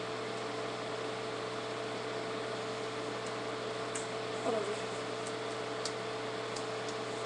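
Steady room tone: an even hiss and low hum with a faint steady tone, broken by a few light clicks and a brief faint murmur about four and a half seconds in.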